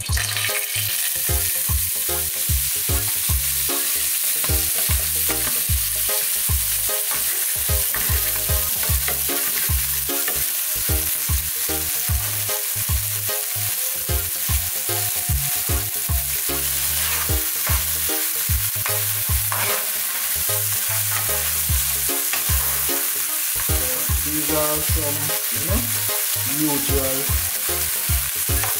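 Chopped onion, tomato and sweet pepper sizzling steadily in hot oil in a nonstick frying pan. The sizzle starts at once as the vegetables go in, and they are stirred with a metal spatula.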